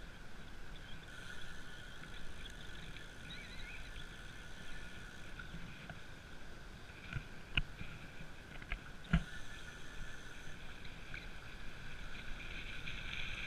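Riding noise of a recumbent trike rolling on an asphalt trail: steady rumble of tyres and wind with a steady high-pitched hum over it. A few sharp knocks come past the middle, as the trike goes over bumps.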